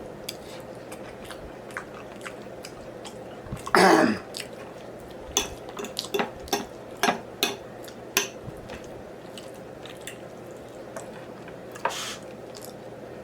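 Close-miked eating sounds: a person chewing soul food with wet mouth clicks and smacks, several in quick succession in the middle. A single louder mouth sound about four seconds in stands out above the rest.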